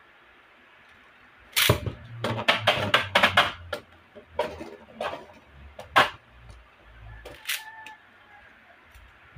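Emperor Forneus Beyblade top going into a clear plastic stadium about a second and a half in, clattering against the bowl in a quick run of sharp knocks. It then spins on with a few scattered single knocks against the stadium wall.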